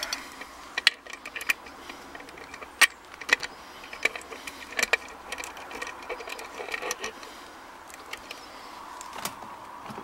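Irregular metallic clicks, clinks and knocks of a PanaVise and a steel padlock being handled and set up, the sharpest knock about three seconds in.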